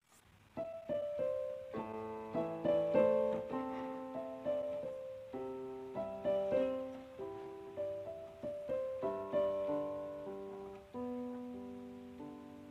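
Background piano music: a slow, gentle melody of single notes and chords that starts about half a second in.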